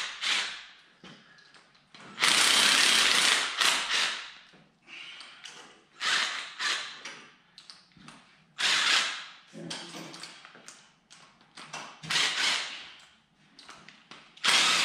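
Cordless power driver with a socket extension run in short bursts, loosening the rocker arm bolts on an LS 4.8 V8's cylinder head. There are about five runs, the longest about two seconds long, starting about two seconds in.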